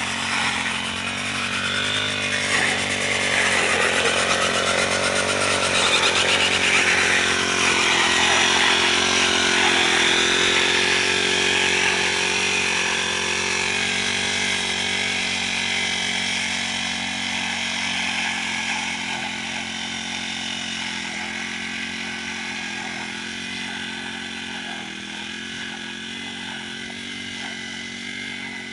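Honda GX35 four-stroke brush cutter running at working speed, its spinning head cutting weeds between rice rows. It grows louder for the first several seconds, then slowly fades.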